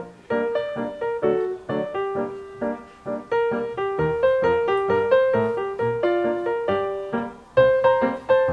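Background music: a light piano melody of struck notes over lower accompanying notes, playing at an even pace.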